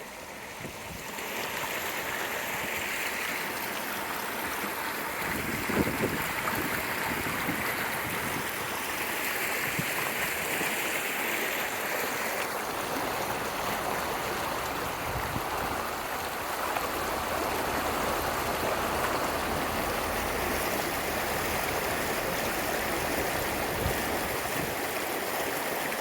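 Steady rush and splash of floodwater pushed aside by a vehicle's wheels as it drives through water almost hub-deep, with a short knock or two about six seconds in.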